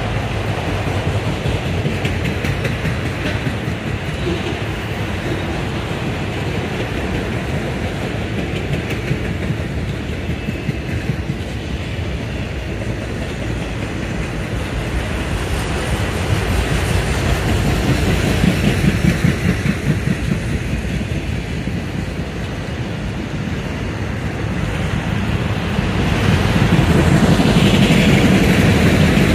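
Norfolk Southern freight train of autorack cars rolling past, steel wheels clicking over the rails with a steady rumble. It grows louder about two-thirds of the way through and again near the end.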